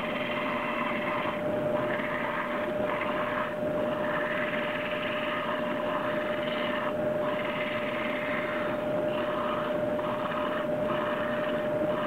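A 12-inch, 60-grit sanding disc mounted on a lathe, running with a steady hum. A wooden knob is pressed against it again and again, so a gritty sanding noise comes and goes about once a second.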